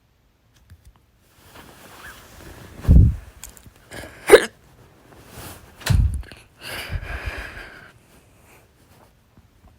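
A woman hiccuping loudly: three sharp hics about a second and a half apart, the middle one the loudest, followed by a breath.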